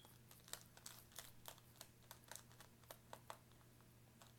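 Faint, light scratching ticks of a marking pencil drawing guidelines across a wig cap stretched on a wig block, a quick irregular run that stops about three and a half seconds in, over a faint low hum.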